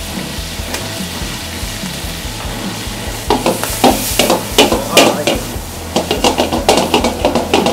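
Seafood frying in margarine in an aluminium sauté pan with a steady sizzle. From about three seconds in, a spatula stirs the seafood in quick strokes, scraping and knocking against the pan.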